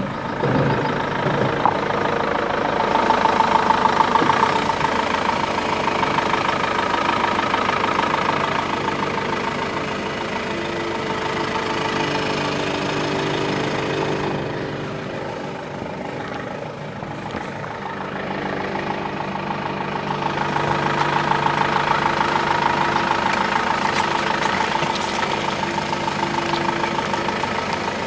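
A 4x4 off-road vehicle's engine running as it drives over uneven terrain, its sound swelling and easing off, loudest twice.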